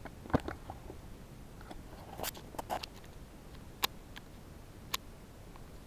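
Handling noise close to the microphone as a baseball bat and the camera are moved about by hand. There is a knock about a third of a second in, a few rustling clicks a couple of seconds in, and two single sharp clicks about a second apart near the end.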